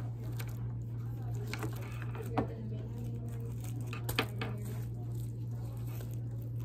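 A cord being wiped down by hand, a wipe rubbing and rustling along the cable, with a couple of sharp clicks or taps about two seconds in and again about four seconds in, over a steady low hum.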